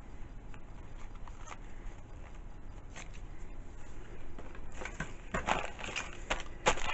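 Light handling sounds of paper-craft materials and ribbon: scattered soft clicks and rustles, with a busier run of sharper clicks about five seconds in.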